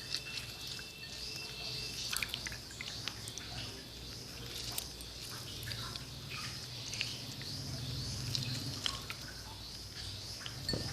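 Steady high-pitched insect chirring with a low hum beneath, and scattered small clicks and taps throughout.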